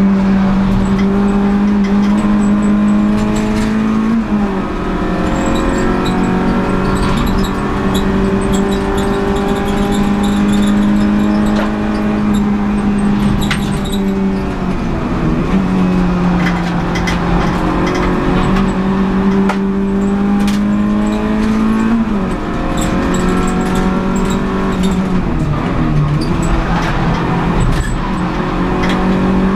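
Renault Clio Sport 182's 2.0-litre four-cylinder engine at racing revs, heard from inside the stripped cabin. Its pitch climbs steadily, drops sharply about 4 s and 22 s in, and dips and recovers around 15 s and 25 s in.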